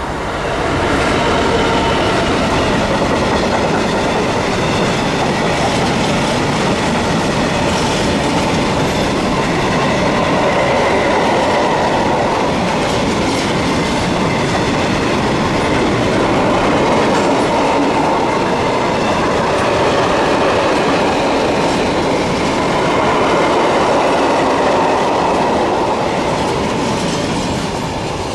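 An empty steel freight train's covered steel coil wagons rolling past at speed: a loud steady rumble with the clatter of wheels over the rail joints. It builds in the first second, swells a couple of times as the wagons pass and eases slightly near the end.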